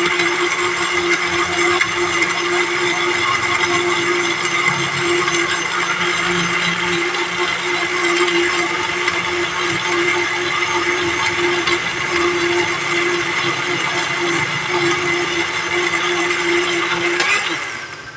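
Electric blender running steadily at full speed, whirling lemon juice, water and Snow Bear menthol candies until the candies dissolve. Near the end the motor is switched off and winds down, falling in pitch.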